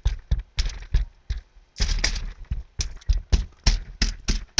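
Hand patting seasoning into raw chicken drumsticks on a foil-lined pan: a run of quick pats, about three a second, with a short pause around a second and a half in.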